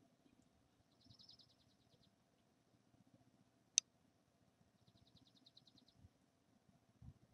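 Near silence: room tone with a faint steady low hum. Two faint, rapid, high trills of about a second each are heard, one early and one past the middle, and a single sharp click sounds about halfway through.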